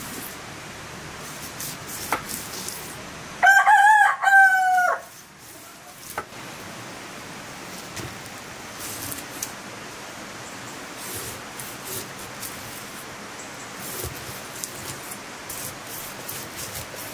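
A rooster crows once, about three and a half seconds in, one call of about a second and a half that is the loudest sound here. Behind it runs a steady hiss of rain, with a few faint knocks of a knife scoring a large fish on a wooden board.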